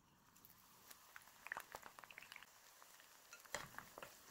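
Very faint, sparse crackling of ivy gourd slices deep-frying in oil, scattered small pops over near silence.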